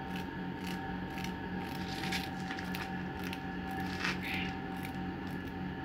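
A wooden comb's teeth being scraped, giving irregular light clicks and scrapes over a steady low hum.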